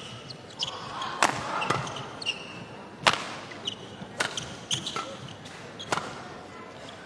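Badminton rackets striking the shuttlecock in a fast doubles rally, a sharp crack every second or so, with short squeaks of court shoes between hits in a large hall.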